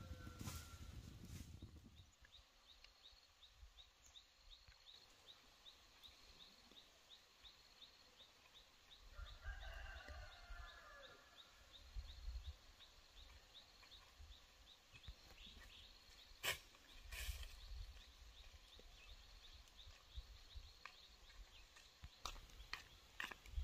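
Faint rural outdoor ambience: a steady run of short, high chirps repeating about three times a second, with a brief animal call about ten seconds in and a few sharp knocks later on.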